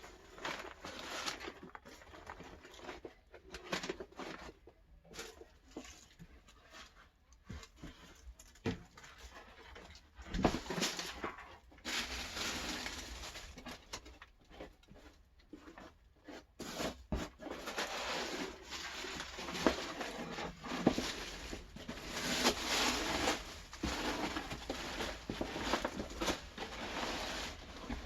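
Hands rustling through and moving worm bedding and old cardboard lining, with irregular crackles and light taps, getting busier about halfway through.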